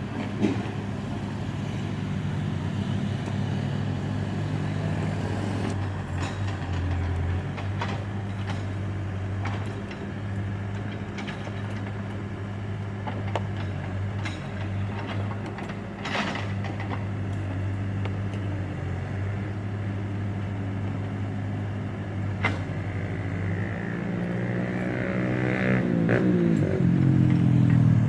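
Backhoe engine running steadily, with occasional sharp clanks, then revving up and getting louder near the end.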